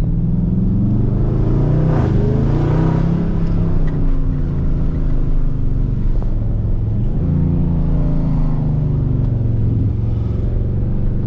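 Supercharged Hellcat V8 of a Jeep Grand Cherokee Trackhawk heard from inside the cabin, running as the car drives, with the engine note rising as it accelerates about a second in and again around seven seconds in, easing off in between.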